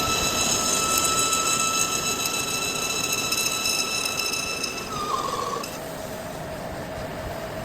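Steady high-pitched metallic machine whine over a noisy mechanical background; about five seconds in the whine stops, a short sliding tone follows, and a lower steady tone takes over.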